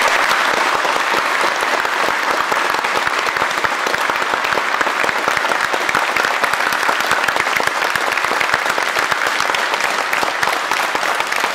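Sustained applause from a large audience, many hands clapping at once without a break.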